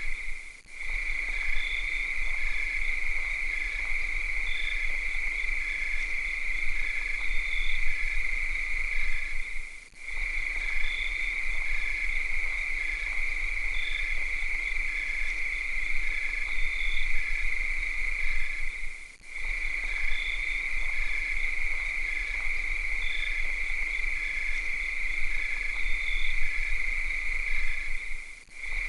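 Cicadas shrilling in a steady, high, unbroken drone, with a fainter pulsing insect call repeating about once or twice a second. The whole chorus dips briefly about every nine seconds.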